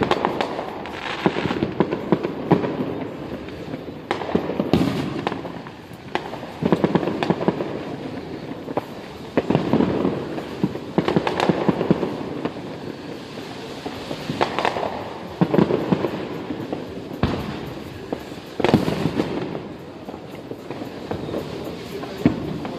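Fireworks going off: a string of bangs every second or two, each trailed by dense crackling.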